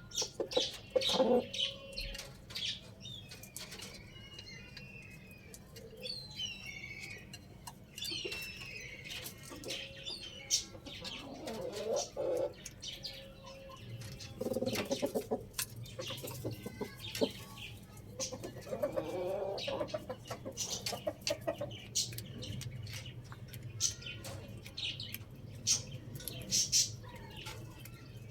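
Chickens flapping their wings and clucking, with small birds chirping. A low steady hum comes in about halfway through.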